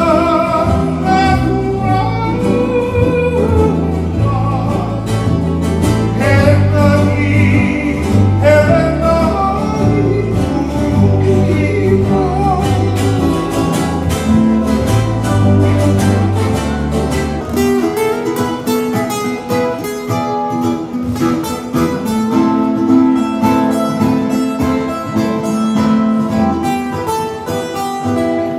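A song with a singing voice over plucked guitar and a steady bass line. About two-thirds of the way through the bass drops out and strummed acoustic guitar carries on.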